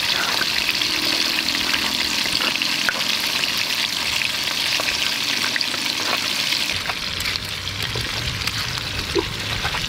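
Pieces of snakehead fish deep-frying in hot oil in a pan: a steady sizzle with scattered small crackles and pops.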